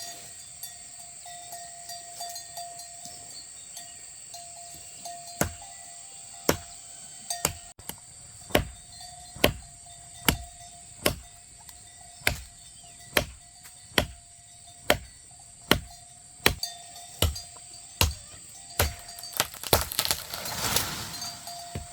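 Steady chopping with a hand tool: sharp strikes about once a second, starting about five seconds in, over a steady high-pitched drone. A brief rustling swell comes near the end.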